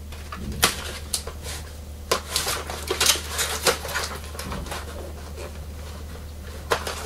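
Cardboard and plastic toy packaging being handled and cut open with a craft knife: rustling and scraping with many short, sharp clicks scattered through it.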